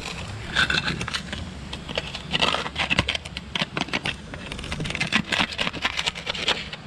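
Barnacles being scraped off a boat hull: rough, crackling scraping strokes that come in several bursts.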